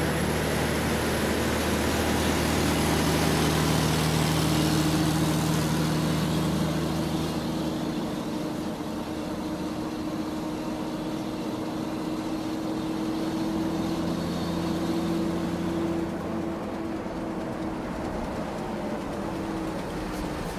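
Excavator's diesel engine running steadily at work, its note and level easing down about seven seconds in.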